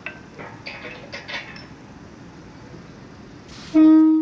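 Light metallic clinks and clanks from the hand-lowered crossing barrier arm, then near the end a short, loud single-note horn blast from a Bombardier Aventra Class 701 electric train.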